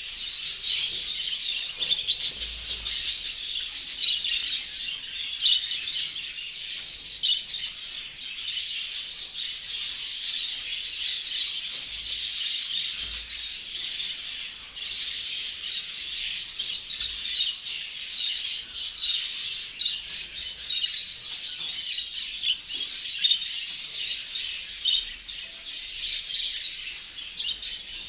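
A flock of budgerigars chattering and warbling, a dense, continuous mass of many overlapping chirps.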